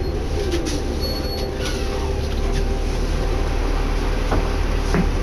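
Cabin of a moving 2011 New Flyer D60LFR articulated diesel bus: a steady low engine and road rumble with a faint hum, and scattered clicks and rattles from the interior.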